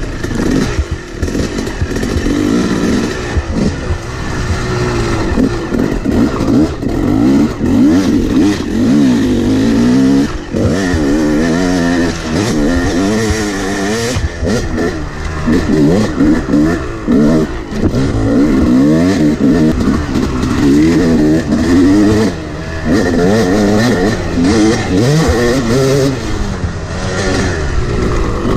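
Yamaha 250 two-stroke dirt bike engine revving up and down as it is ridden on a trail, its pitch rising and falling over and over with the throttle and the gear changes.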